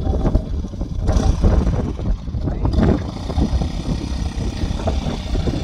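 Motorcycle engine running as the bike is ridden off-road, climbing through tall grass on a slope.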